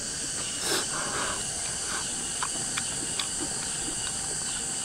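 Steady high-pitched chorus of insects, crickets or similar. About a second in there is a short breathy sound, and after it a few faint clicks.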